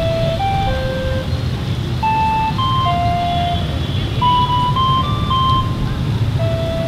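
Ice cream vendor's electronic jingle: a simple tune of single beeping notes that starts over near the end, over a steady rumble of street traffic.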